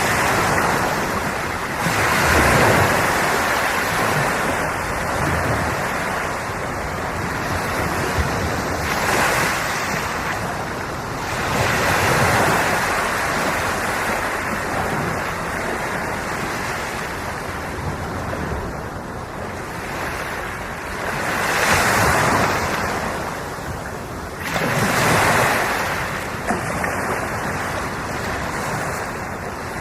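Ocean waves breaking and washing on the shore in a steady surf, with a louder wave swelling up every few seconds.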